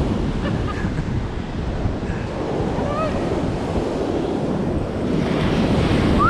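Ocean surf breaking and washing up a sandy beach, mixed with wind buffeting the GoPro's microphone. A short rising squeak comes right at the end.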